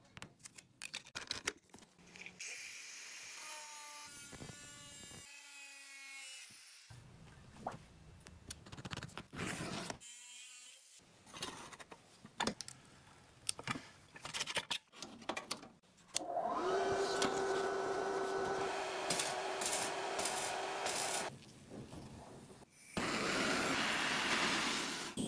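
Sheet-metal workshop sounds in quick succession: scattered knocks and clicks of metal being handled, then a power tool running with a steady whine for about five seconds past the middle, and a gas torch hissing near the end.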